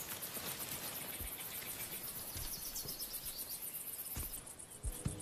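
Insects chirring in a fast, even pulse over a steady outdoor hiss, with a few soft low thuds.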